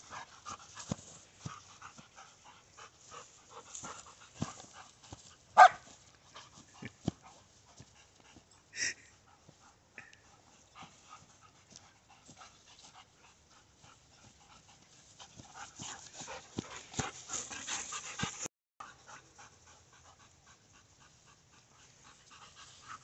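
Dogs panting after running play, with light scattered rustles and one sharp, loud sound about five and a half seconds in.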